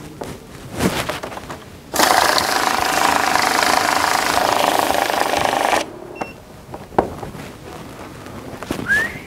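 Electric banknote counting machine running in one loud, steady run of about four seconds, starting suddenly about two seconds in and cutting off sharply.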